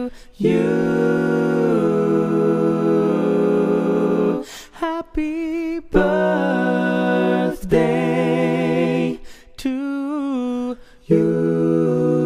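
Wordless a cappella vocal music: voices humming and singing long held notes in harmony, several with a wobble, with two short breaks between phrases.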